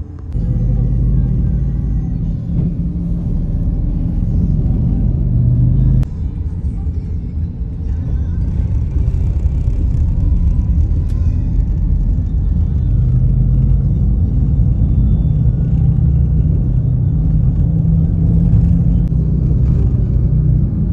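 Steady low rumble of a taxi's engine and tyres heard from inside the cabin as it moves through city traffic.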